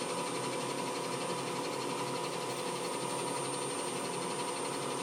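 Small CNC lathe running, its spindle turning steadily with a constant hum and several steady tones. It runs while the turret's tool takes a light spring pass over the threads to deburr them.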